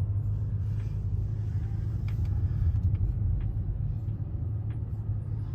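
Steady low rumble of a car's engine and tyres heard from inside the cabin while driving slowly on snowy roads.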